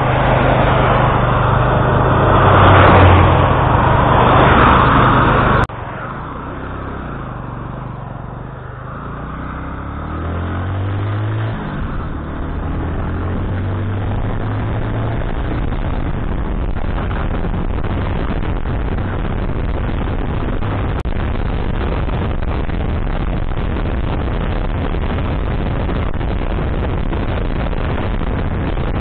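Cars passing close by on a wet road, the loudest sound, over a Bajaj Boxer's single-cylinder four-stroke engine idling. After an abrupt cut about six seconds in, the engine pulls away, rising in pitch through gear changes, then settles into a steady rush of wind and road noise while riding.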